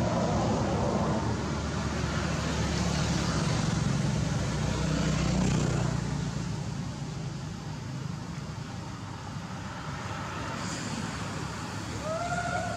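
Steady low rumble of road traffic, louder through the first half and easing off after it. Near the end comes a short, arching two-tone call.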